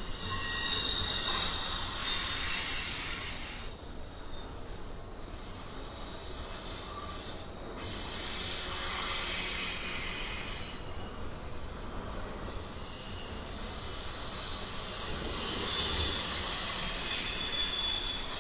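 Freight cars of a passing train rolling by on the rails, their wheels squealing in three high-pitched spells of a few seconds each, over a steady low rumble.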